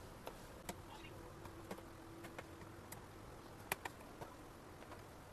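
Scattered small clicks and ticks of a laptop's back panel being refitted and screwed down, with a faint steady hum for about two seconds in the middle.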